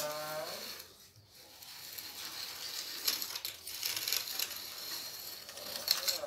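Wooden template board scraping around a damp sand mould, a continuous gritty rasp as excess sand is shaved off to bring the form to shape. A brief bit of a man's voice at the very start.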